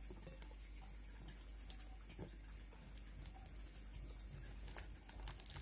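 Faint eating sounds of a person eating rice by hand: soft chewing and scattered small clicks and ticks as fingers pick food from the plate, over a low steady hum.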